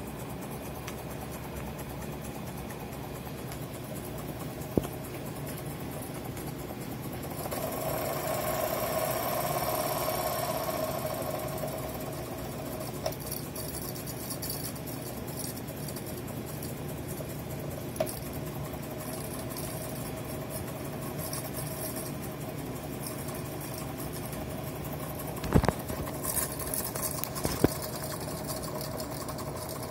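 Jensen 75 toy live steam engine running, a fast, steady, light mechanical clatter, driven in reverse for part of the time. The sound swells for a few seconds about a quarter of the way in, and a few sharp clicks stand out.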